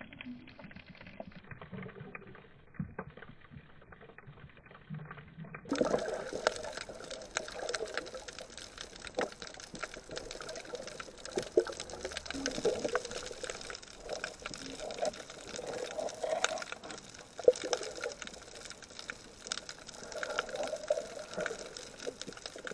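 Water bubbling and sloshing with many small sharp clicks, typical of a camera's microphone underwater or at the surface while snorkelling. The sound changes abruptly about six seconds in, becoming fuller and louder, with swells of bubbling every second or two.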